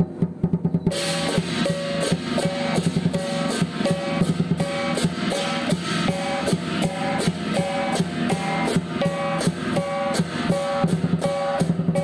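Lion dance percussion: a large drum beating a fast, steady rhythm. About a second in, crashing cymbals and a ringing gong join it, striking about twice a second.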